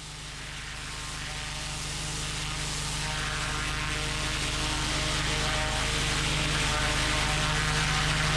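Pressure washer running, its engine and pump holding a steady drone under the hiss of a turbo lance (rotating nozzle) spraying water onto paving slabs. The sound grows gradually louder over the first few seconds, then stays steady.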